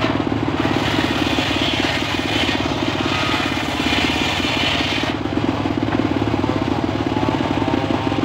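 Engine-driven circular saw bench running steadily, with a fast even thumping beat. A higher hiss joins in from about a second in until about five seconds in.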